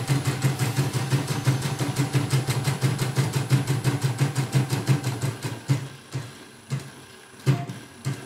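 Portable computerized embroidery machine stitching in fast, even needle strokes over a steady motor hum, then slowing and stopping about six seconds in, with a single light knock near the end. It is running smoothly after adjustment and a new bobbin case.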